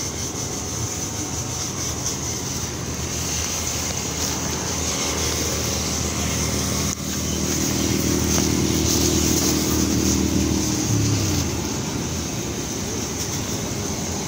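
A motor vehicle's engine running, growing louder about halfway through and fading away near the end, as of a vehicle passing, over a steady low rumble.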